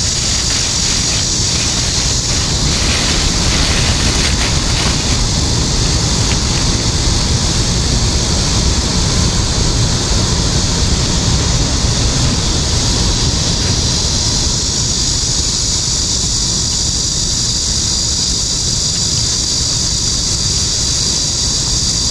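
Wind buffeting the microphone, a steady rumbling noise, under a constant high-pitched hiss.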